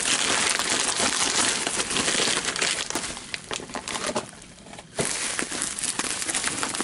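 Bubble wrap and a plastic mailer crinkling and rustling as they are handled, torn open and cut with a knife. The crinkling dies down for about a second past the middle, then starts again sharply.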